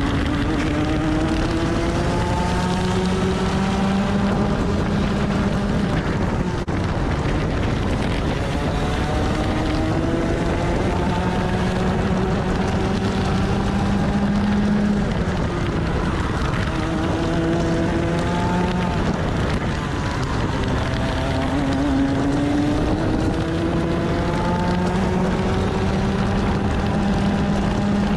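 Onboard sound of a 125cc TaG two-stroke kart engine at racing speed. Its revs climb steadily for several seconds down each straight and drop off into each corner, about four times over.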